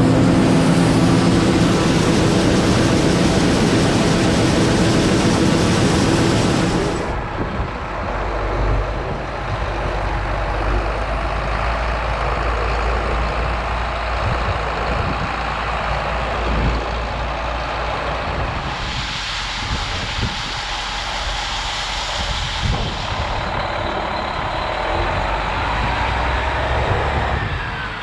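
Heavy diesel machinery running: a loud engine with a strong hiss for about the first seven seconds, then an abrupt change to a lower, steady engine rumble.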